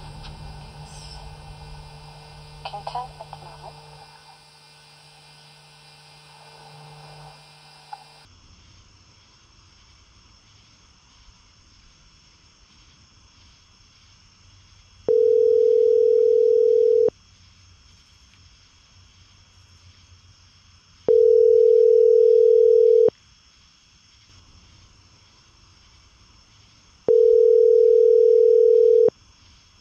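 Telephone ringback tone of an outgoing call ringing: three steady two-second rings, six seconds apart, over faint chirping of night insects. Before the rings, about the first eight seconds hold the steady hum of old camcorder footage.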